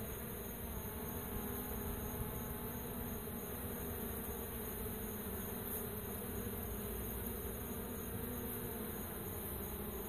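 A swarm of honey bees buzzing steadily, the hum of many wings at once.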